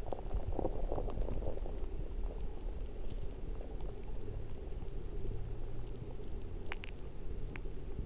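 Stream water heard underwater: a steady, low bubbling rush of current over a rocky bed, with a few small clicks late on.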